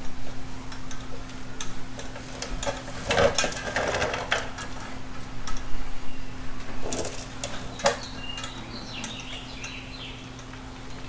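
Irregular clicks and short rustles of hands working, over a steady low electrical hum, with a brief faint squeak near the end.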